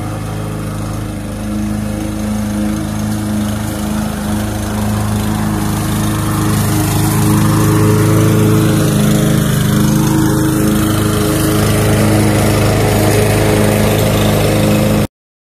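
Troy-Bilt TB200 self-propelled mower's small gasoline engine running steadily while mowing grass. It grows louder over the first several seconds and cuts off suddenly near the end.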